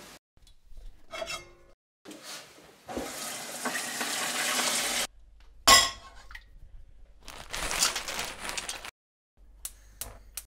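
A steel pot handled on a gas hob, with about two seconds of steady noise and then one loud metal clank as the pot is set down on the burner grate. Near the end come a few sharp clicks as a burner knob on the Bosch gas hob is pushed and turned to light the gas.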